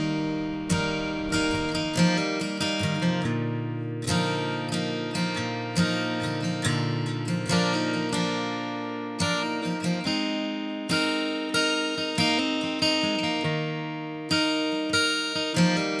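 Background music: an acoustic guitar plays plucked notes, each one ringing and fading before the next.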